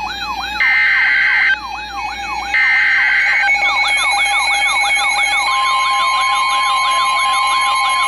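Midland NOAA weather radio sounding a tornado warning alert: two loud bursts of the SAME digital header tones, about a second each, with the radio's own siren warbling rapidly up and down between and after them. About five and a half seconds in, the steady 1050 Hz weather-radio warning alarm tone joins the siren.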